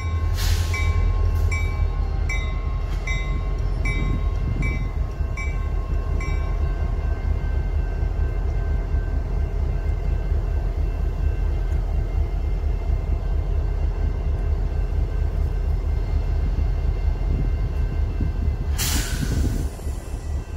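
CSX diesel freight locomotives running with a steady low rumble. A railroad crossing bell rings about twice a second for the first six seconds, then stops. A short hiss comes near the end.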